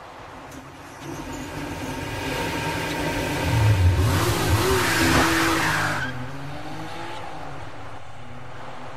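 Car sound effects from an animated intro: an engine revving with a tyre screech, loudest about four to six seconds in, then easing to a steady lower level.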